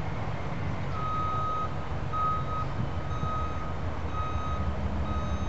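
Electronic beeper sounding a steady high tone, switched on and off about once a second, starting about a second in, over a continuous low rumble.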